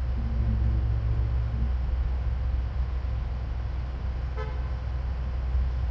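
Street traffic running as a steady low rumble, with one short car horn toot about four and a half seconds in.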